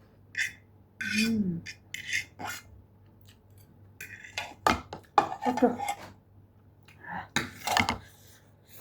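A metal utensil scraping and clinking against the pot the noodles are eaten from, in short irregular bursts, with a short vocal sound about a second in.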